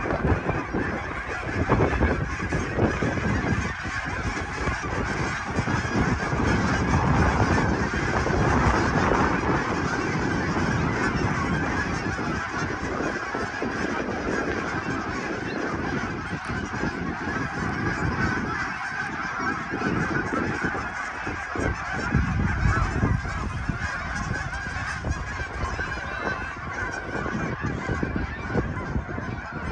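A large flock of waterfowl calling in flight overhead: a dense, continuous chorus of many overlapping honking calls, over a low rumble.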